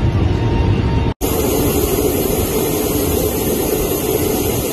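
Steady drone of an Embraer KC-390 transport in flight, heard inside its cargo hold. About a second in it cuts off abruptly and gives way to a steady, hissier aircraft noise heard from outside the plane.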